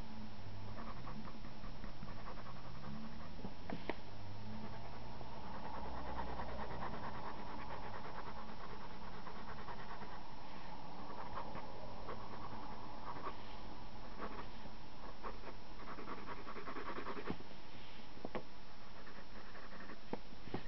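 A pencil shading on paper: runs of quick back-and-forth scratching strokes with short pauses between them.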